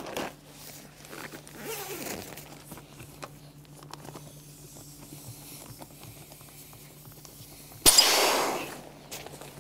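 Air rushing out of an inflatable tent's air pole as its deflation valve is opened: a sudden loud hiss near the end that fades away over about a second. Before it come faint handling sounds over a steady low hum.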